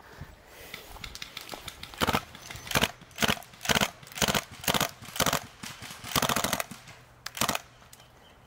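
Sten MK5 gas blowback airsoft gun firing full-auto in a string of short bursts, each a quick rattle of shots. The bursts start about two seconds in and run on for about five seconds, with one longer burst near the end.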